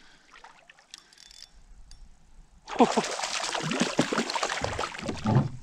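A hooked walleye splashing and thrashing at the water's surface beside a kayak while being reeled in. The splashing starts suddenly about two and a half seconds in, after a few faint clicks.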